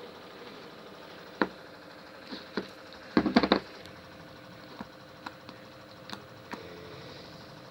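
Small objects being handled during slime making: scattered sharp taps and clicks, with a quick run of clatter about three seconds in, over a steady background hum.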